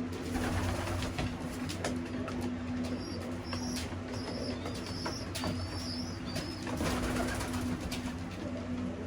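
Young racing pigeons moving about a loft floor: scattered short clicks and taps, with a run of thin, high, wavering chirps in the middle, over a steady low hum.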